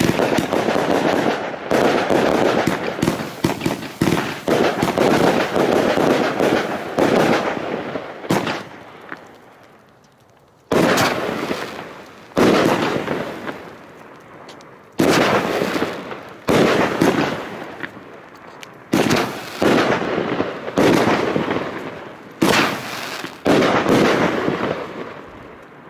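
A 239-shot firework compound (cake) firing. First comes a dense run of rapid shots and crackling bursts that fades out after about eight seconds. Then the shots come singly, a loud burst every second or two, each trailing off.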